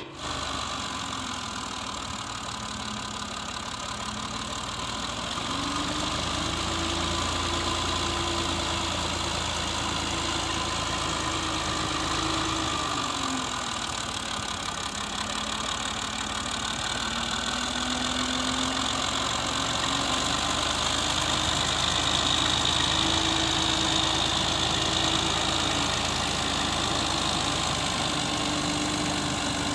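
Farm tractor's diesel engine running while the tractor is manoeuvred, its speed rising and falling several times.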